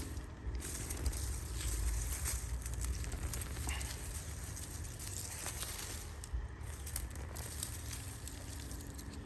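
Dry garlic leaves and stalks rustling and crackling as hardneck garlic plants are pulled from the soil and handled, with many small irregular crackles.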